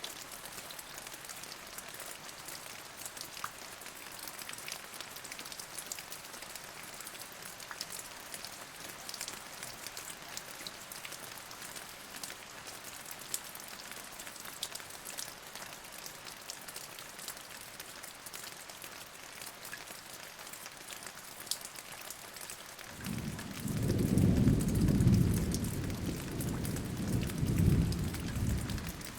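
Steady rain with many small drops ticking. About 23 seconds in, a low rumble of thunder swells up, louder than the rain, and dies away about six seconds later.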